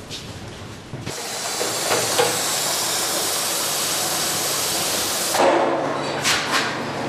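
Water running hard from a kitchen tap into a stainless steel sink as dishes are washed, with a couple of clinks. About five seconds in it gives way to a clatter, then a steady low hum with two sharp knocks.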